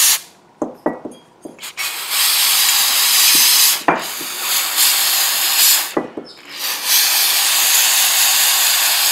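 Aerosol can of carburetor cleaner spraying onto metal carburetor float bowls and covers in three long hissing bursts, with a few short knocks of the parts being handled and set down between bursts.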